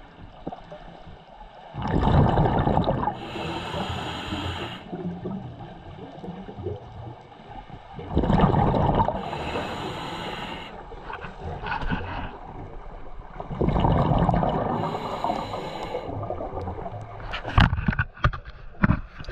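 Scuba regulator breathing underwater: three breaths, each a rumbling burst of exhaled bubbles, with the high hiss of inhaling through the regulator after two of them. A few sharp clicks and knocks come near the end.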